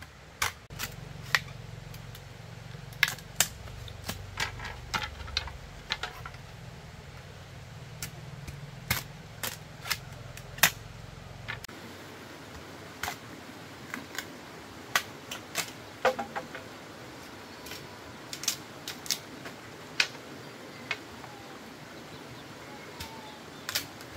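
A series of sharp clicks and knocks at irregular intervals, roughly one every second or two, over a low hum that stops about halfway through.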